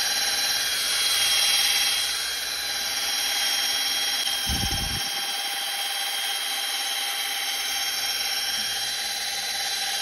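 Cordless drill running at a steady speed, spinning a black foam finishing-polish pad against a glossy 3D-printed helmet: a steady motor whine with a short low thud about halfway through.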